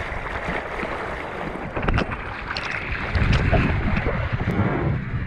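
Water splashing and sloshing close to a board-mounted action camera as a bodyboarder paddles with his hands, with wind buffeting the microphone. A heavier low rumble of water and wind swells up about three seconds in.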